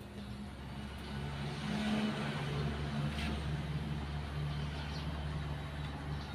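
A motor vehicle's engine running steadily, swelling about a second in and then holding at a low hum.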